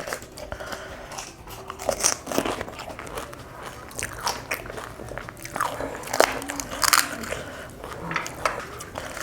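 Close-up biting and chewing of fuchka (pani puri): the crisp hollow puri shells crunch and crackle irregularly between wetter chewing sounds.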